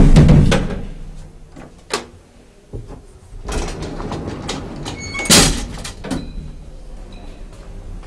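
Elevator doors: a heavy bang as a door shuts at the start, then a few clicks, and a rattling slide with a sharp clack about five seconds in.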